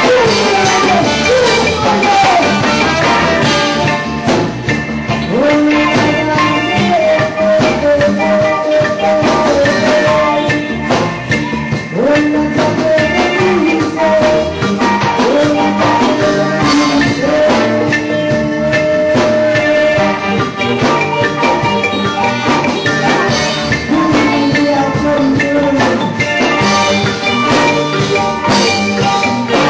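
Reggae band playing live: drums and bass under a lead melody that slides between notes, running steadily without a break.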